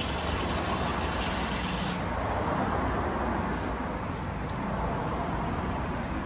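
Street traffic: passing cars making steady engine and tyre noise.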